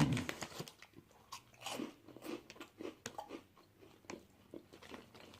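A person chewing crunchy tortilla chips: a run of soft, irregular crunches.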